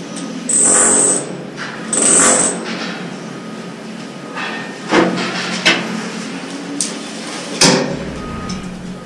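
PVC drain pipe being handled and fitted into its fittings: two scraping strokes near the start, then several sharp knocks of plastic pipe against pipe and wall.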